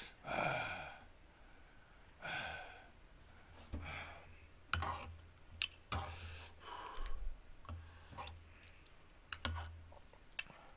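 Metal spoon clicking and scraping against a bowl while eating, with a couple of heavy breathy exhales near the start.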